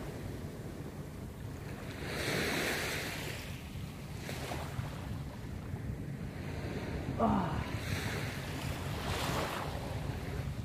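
Small waves washing up onto a sandy shore in several surges, over a steady low rumble of wind on the microphone. A brief falling squeak comes about seven seconds in.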